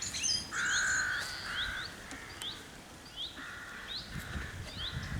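A crow cawing: two harsh caws early on, then three more near the end. A small songbird repeats short rising chirps throughout.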